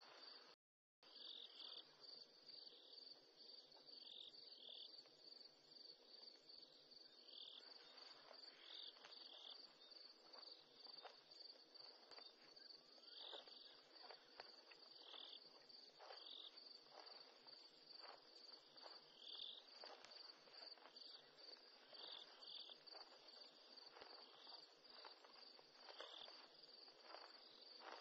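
Faint night chorus of crickets and other insects: a steady, fast-pulsing high trill with a second chirp repeating every second or two. From about a third of the way in, soft irregular crunches join it, a rhino cropping grass. The sound cuts out briefly just after the start.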